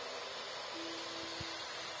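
Braun electric kettle heating water, giving a steady hiss as it works toward the boil. Faint held notes of distant music sound alongside.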